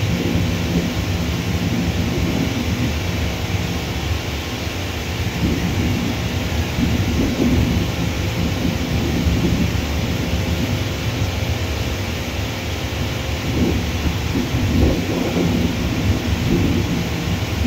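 Low, steady rumble of jet airliner engines on the runway, with a faint steady hum. The rumble swells a few seconds in and again near the end.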